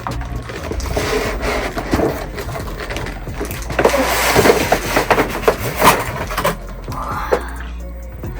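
A doll's cardboard box and plastic packaging being opened and handled: rustling, scraping and a run of sharp clicks and snaps, busiest in the middle.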